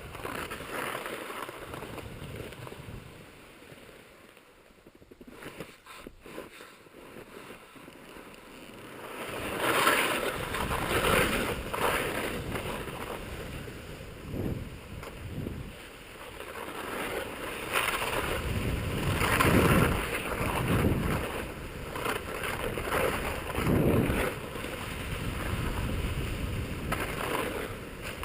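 Rushing noise of a snowkite ride: wind on the microphone and a board or skis sliding over snow. It swells and fades, dipping low early on and surging repeatedly in the second half.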